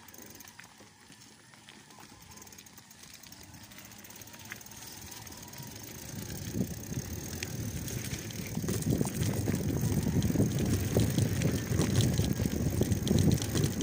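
A mountain bike rolling over rough ground, heard through its handlebar-mounted phone: a low rumble with many small rattles and clicks that starts about six seconds in and grows steadily louder as the bike reaches a bumpy dirt trail.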